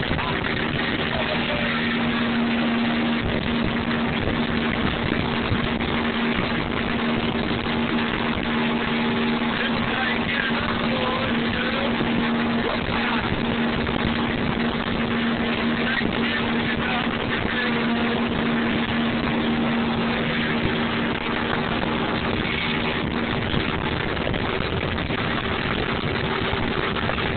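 Motorboat engine running steadily under way, a constant hum over the rush of water and wind as the boat moves at speed.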